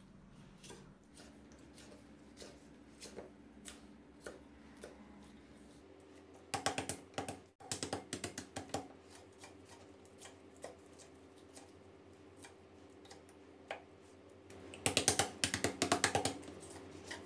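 Chef's knife chopping Thai water spinach stems on a wooden cutting board: scattered single cuts knocking on the board, then two quick runs of rapid chopping, about six seconds in and again near the end.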